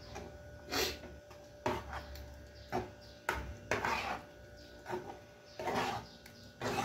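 Metal spoon scraping and clinking against an aluminium saucepan while stirring sausage in tomato sauce, a string of irregular short scrapes and knocks.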